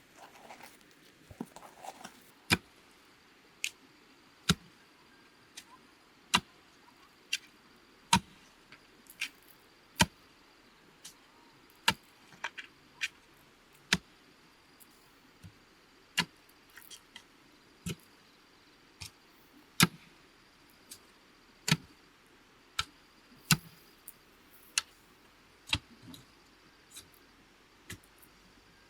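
Sharp hand-tool blows on bamboo: a louder strike about every two seconds, with lighter taps in between.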